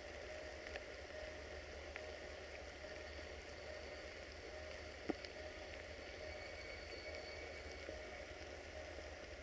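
Faint steady hiss of light rain falling, with scattered drips and one sharper tap about five seconds in, over a faint steady hum.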